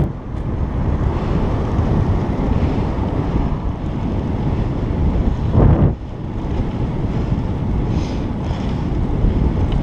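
Wind rushing over the microphone of a bicycle-mounted camera while riding, a steady low rumble with one louder surge a little past halfway.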